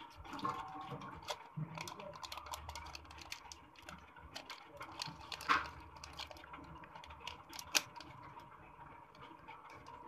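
Plastic packaging crinkling and crackling in the hands as a replacement iPhone charging-port flex cable is unwrapped, in irregular short crackles with two louder ones about halfway through and later on.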